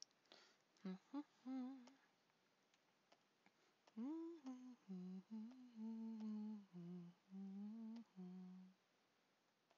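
A woman humming a short tune to herself: a few notes about a second in, then a longer run of held notes from about four seconds in. A few faint clicks near the start.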